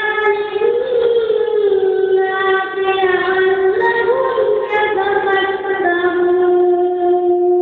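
A single high voice chanting a slow, unaccompanied melody in long sliding notes, holding one long note near the end.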